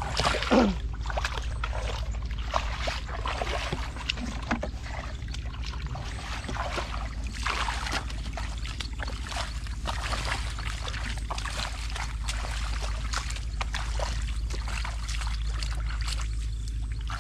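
Rustling and scraping of feet and hands moving through grass and wet mud, in many short scattered sounds, over a steady low rumble.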